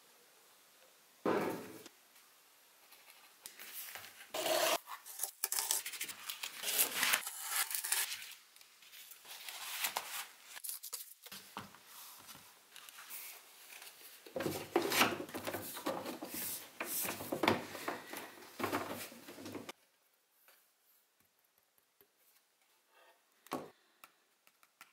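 Hands handling a moulded plastic 3D printer cover panel: rubbing, scraping and clicking in irregular bursts, dying down about 20 seconds in, with one click near the end.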